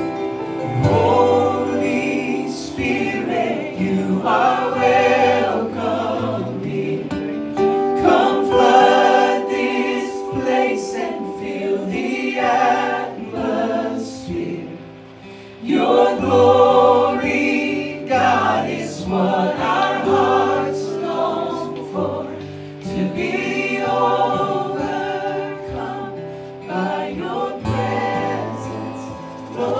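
A worship song sung by a group of voices over sustained instrumental chords and a moving bass line, in phrases with a brief lull about halfway through.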